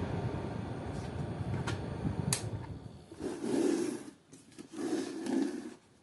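Nanwei QM-3C28 battery-powered portable fan running, its airflow rushing over the microphone in a steady roar that fades away over the first three seconds. A couple of sharp clicks come about two seconds in, then two short muffled rubbing sounds of handling.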